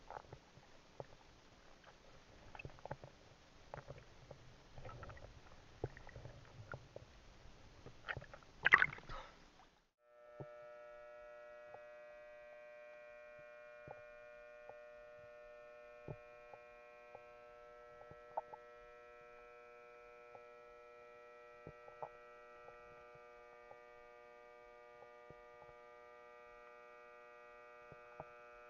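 Faint underwater sound. Low crackling noise and scattered small clicks, with one louder burst a little under nine seconds in. About ten seconds in, this switches abruptly to a steady hum of several fixed tones with faint clicks scattered over it.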